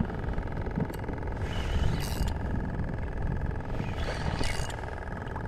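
Hangkai 15 hp outboard motor idling steadily on an inflatable boat, a faint steady hum under the wash of the sea. A few louder rushes of noise come roughly every two seconds.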